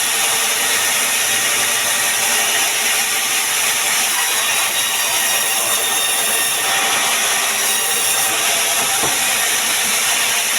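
Sawmill power saw cutting through pine wood, a loud, steady, unbroken cutting noise.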